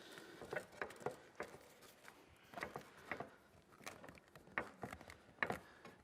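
Faint, irregular taps and rubbing of hands pressing a flexible Wakaflex flashing down onto roof tiles, with a few sharper knocks in the second half.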